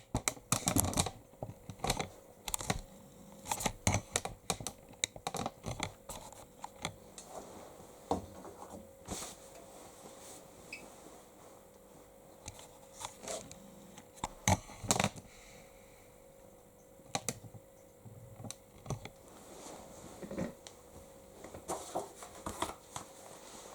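Irregular clicks and taps of the Bosch Series 6 heat pump tumble dryer's program dial and buttons being operated to select the Shirts cycle, over a faint steady hum.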